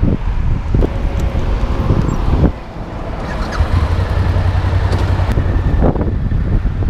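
Motorcycle engine running as the bike pulls away from the curb into city traffic, settling into a steady low hum from about halfway through, with a rough low rumble of wind on the microphone.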